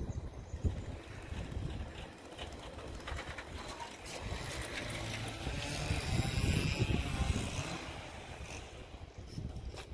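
Outdoor ambience on an open town square: a low, uneven rumble on the microphone, with a louder passing noise that swells about six seconds in and fades by eight.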